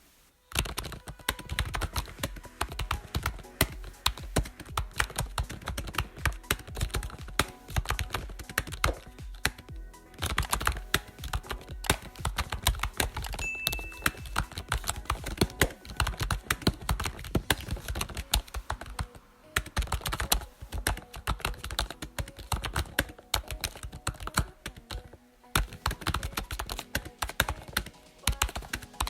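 Rapid computer keyboard typing, keys clicking in quick irregular runs with short pauses, over background music.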